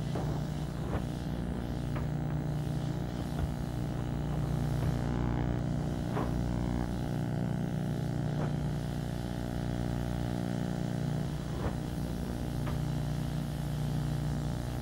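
Tumble dryer running: a steady mechanical hum and rumble with a few light, irregular knocks, like items tumbling in the drum.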